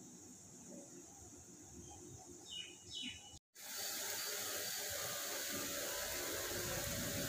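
Two short bird chirps about two and a half and three seconds in, over a quiet background. After a brief dropout, a steady sizzle of green gram batter cooking on a hot iron griddle.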